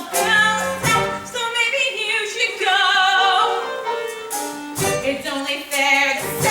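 Stage-musical singing: sung phrases over light accompaniment, with a long held note wavering in vibrato about halfway through.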